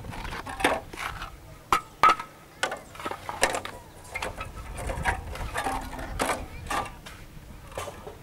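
Irregular clicks, knocks and short scrapes of hard material: hollow concrete blocks being handled and worked by hand, a few strokes with a brief ringing tone.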